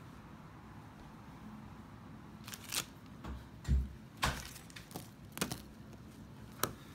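Handling noise from a thick 1/0 gauge power cable being picked up and moved about on a stone countertop. After a quiet first couple of seconds come a few sharp clicks and knocks, with a dull thump about three and a half seconds in.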